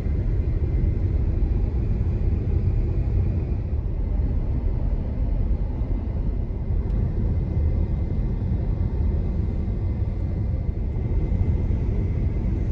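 Steady low road and tyre rumble with a light wind hiss, heard from inside the cabin of a Tesla Model Y cruising downhill at about 53 mph on regenerative braking.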